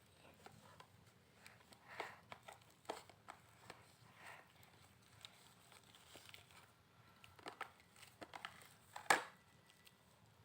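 Hands kneading a sticky clay-and-soap slime mixture: faint, scattered squishing and crackling, with a sharper click about nine seconds in.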